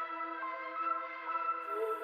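Ambient background music with long held tones.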